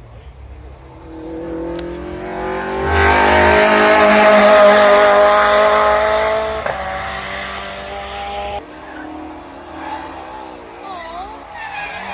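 A motor vehicle's engine rising in pitch, holding high and loud for a few seconds, then easing off.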